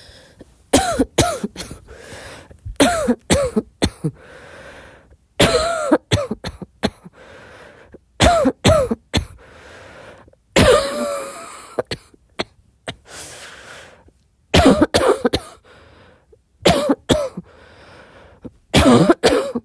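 A woman's coughing fit: about ten clusters of two or three coughs each, coming every second or two, with short quieter pauses between them.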